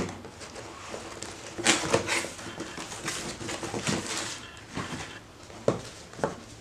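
Cardboard packaging rustling and scraping as a boxed gas leak detector is pulled out of its shipping carton, then a few light knocks as the box is set down on a wooden table near the end.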